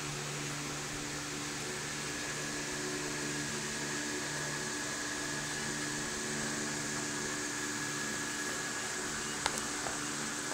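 Steady mechanical hum and hiss, with a faint click about nine and a half seconds in.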